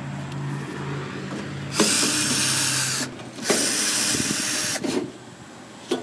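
Cordless drill-driver backing out the screws of an air-conditioner condensing unit's service panel: a lower steady whir at first, then two louder runs of about a second each.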